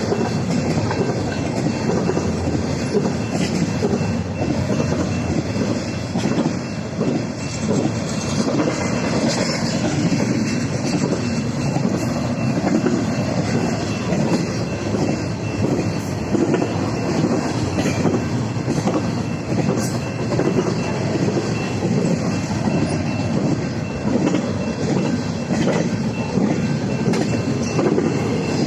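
Cars of an intermodal freight train rolling past: a steady rumble of wheels on rail with clickety-clack over the joints.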